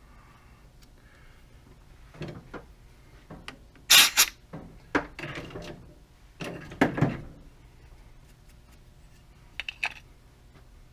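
Tap being turned by hand in a small tap wrench to cut threads in a metal part: a series of irregular scrapes, squeaks and clicks, loudest about four seconds in and again about seven seconds in.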